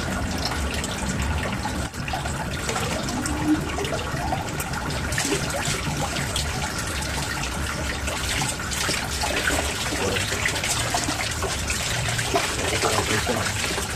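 Water from an Armada submersible pond pump flowing up a half-inch PVC pipe and splashing out of its top back into the pond, louder from about five seconds in. The flow is weak, which is put down to the half-inch pipe being too large for the pump's outlet.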